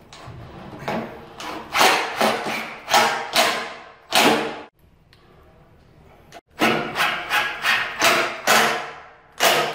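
Cordless impact driver driving fab screws into the corner joint of an aluminium storefront frame, in short trigger bursts. The bursts come in two runs of about six each, with a pause of about two seconds between them, as the screws are run down tight to secure the joint.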